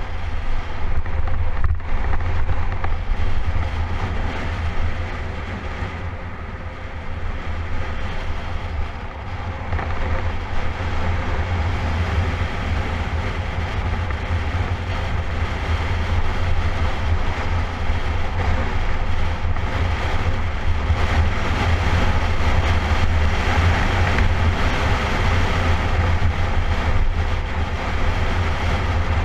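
Heavy wind rumble and buffeting on the microphone of a camera carried on a road bike descending at speed, with a steady hiss of tyre and rushing air that grows louder about a third of the way in.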